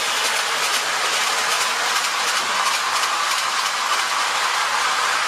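Tinplate O-scale electric model train running on metal track: a steady rolling whir with faint clicks of the wheels over the rail joints.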